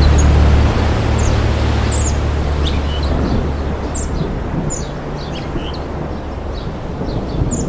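Birds chirping in short, high calls scattered over a steady hiss. A low hum underneath drops in level about a second in and fades out by about three seconds in.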